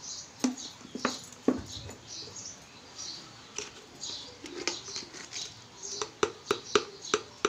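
Light clicks and taps of kitchen utensils being handled, a quick run of them near the end, over faint high chirping in the background.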